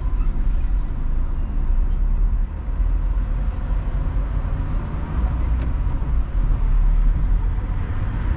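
Road traffic heard from a car moving slowly in city traffic: a steady low rumble of engines and tyres.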